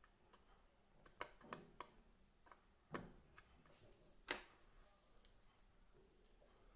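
Small clicks and light knocks from handling a rebuildable vape tank's small metal parts on a wooden table: three light clicks, then a duller knock about three seconds in as the deck is set down, and a sharper click a second later.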